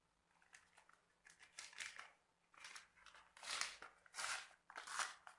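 Utensil stirring a thick mixture of lemon yogurt, vinegar and baking powder in a bowl: a quiet run of short, wet swishing strokes, slightly louder in the second half.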